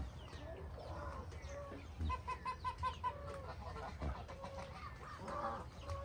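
Farmyard poultry calling, mostly clucking, with a quick run of about five short notes about two seconds in.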